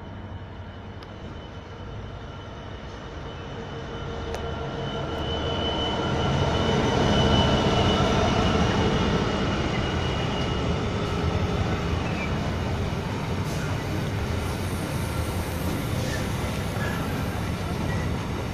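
Freightliner Class 66 diesel locomotive, with its two-stroke EMD V12 engine, approaching and passing close by. Its engine note builds to its loudest about seven seconds in. After that comes the steady rumble of its hopper wagons rolling past, with occasional sharp ticks from the wheels.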